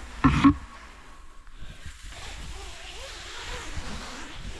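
Low, steady wind rumble on the microphone, with one short loud sound about a quarter second in.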